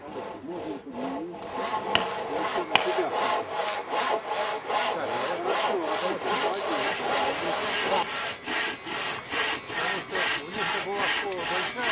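Hand saw cutting through a log, back-and-forth strokes that start uneven and settle into a steady pace of about two a second, getting louder about halfway through.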